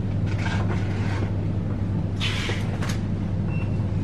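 Supermarket background sound: a steady low hum, with faint knocks and rattles and a brief hiss about two seconds in.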